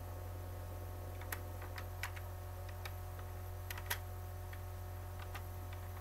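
Computer keyboard keystrokes, scattered and irregular, as text is typed, the sharpest click about four seconds in. A steady low hum runs underneath.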